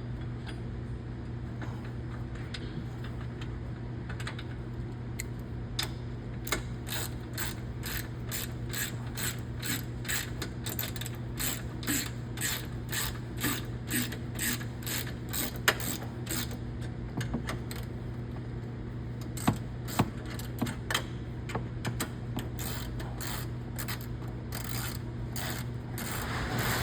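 Socket ratchet clicking in steady runs, about two to three clicks a second, as the bracket's 13mm bolt is run in and tightened, over a steady low hum.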